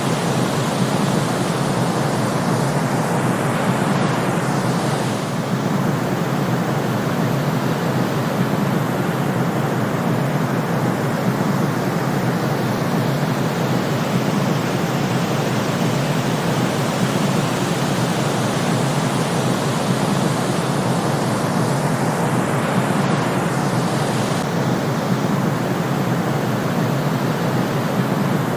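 Steady white noise, even and unchanging, with almost no deep bass, and a faint swish twice about nineteen seconds apart.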